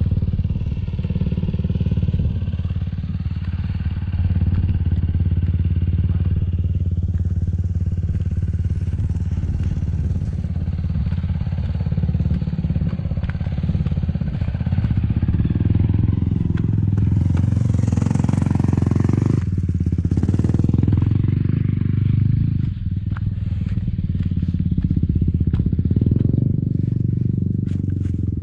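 A motor running steadily with a low, even hum that grows fuller about halfway through, with a brief hiss of air a little after that and a few sharp clicks near the end.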